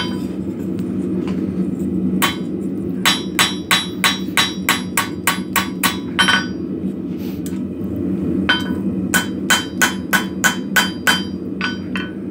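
Blacksmith's hammer striking a steel forging blank on an anvil, each blow ringing. A single blow comes first, then two runs of quick blows at about three a second with a pause of about two seconds between them. A steady low rumble runs underneath.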